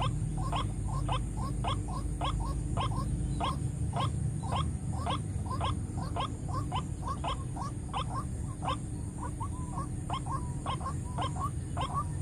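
White-breasted waterhen calling: short notes repeated about three to four times a second without a break, a few drawn out longer near the end, over a low rumble.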